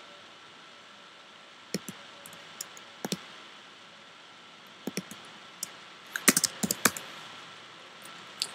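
Typing on a computer keyboard: scattered single keystrokes, then a quick run of keys about six seconds in.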